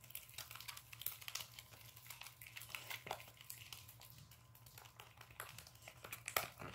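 Clear-glue slime, still setting and sticky, being clicked and kneaded with fingers in a plastic tub: irregular sticky clicks and crackles, several a second.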